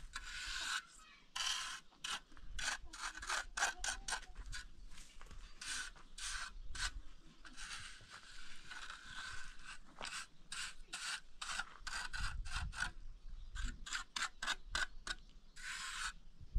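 Steel plastering trowel scraping and smoothing wet cement mortar on a concrete wall top, in many quick strokes of a few per second, with a few longer drawn-out sweeps.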